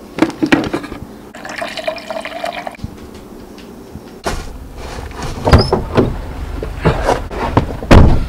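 Drip coffee maker brewing, water gurgling through it. From about four seconds in, a low rumble with rustling and a few sharp knocks.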